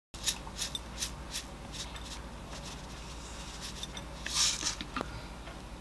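Sesame seed grinder bottle being twisted and shaken over a plate of gimbap: a run of small crisp clicks, then a brief louder rasp of seeds about four and a half seconds in.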